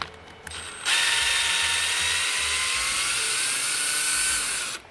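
Cordless drill running for about four seconds, backing screws out of the plastic housing of the Tesla window regulator motor. Its whine rises slightly in pitch as it runs, and it starts about a second in and stops just before the end.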